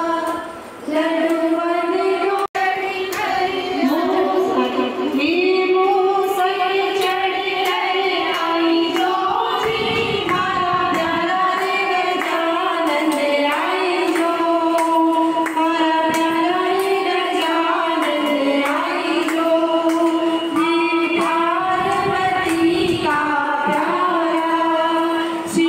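A group of women singing a Hindi devotional kirtan together in unison, with a beat of hand claps.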